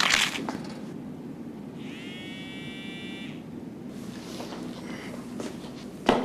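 A mobile phone's text-message alert: one electronic buzzing tone about a second and a half long, rising briefly at its start and then holding steady. A short knock follows near the end.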